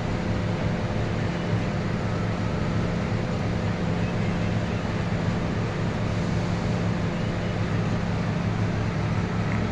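Steady machine hum: a low drone under an even noise, unchanging throughout.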